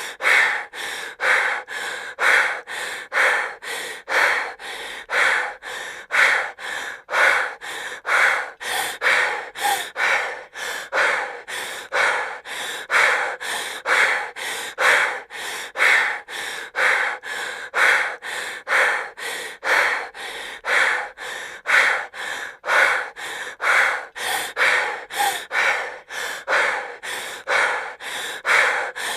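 A woman breathing heavily and fast in a steady rhythm, each breath in and out taking about a second.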